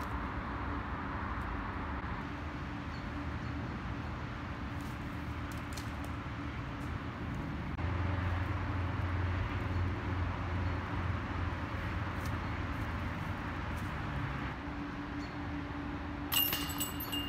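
Steady outdoor rumble, like distant traffic, that swells with a low hum through the middle. Near the end a disc golf basket's metal chains jingle briefly when a disc strikes them.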